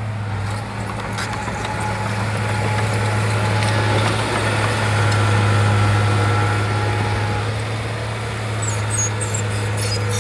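Shantui bulldozer's diesel engine running with a steady low hum, growing louder for a few seconds in the middle, with light clicks near the end.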